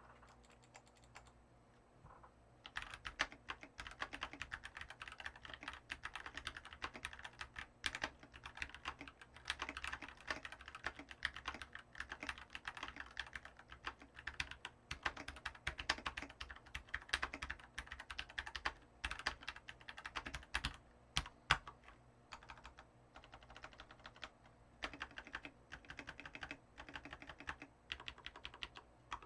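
Typing on a Keychron K14 70% mechanical keyboard with its stock brown tactile switches, a fast run of keystrokes that starts about two and a half seconds in and goes on with only brief pauses. The owner hears a slight hollowness in the case.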